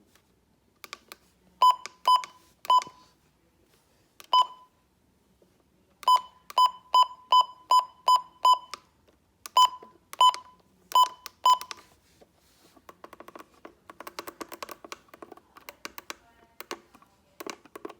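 A series of short, sharp electronic beeps at one pitch, about fifteen in all. Some come singly and there is a quick run of about seven, roughly three a second, about six seconds in. In the last third the beeps give way to a faint, dense crackle of clicks.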